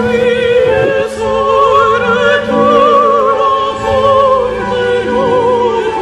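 Classical music with an operatic voice singing long held notes with a wide vibrato over a sustained low accompaniment.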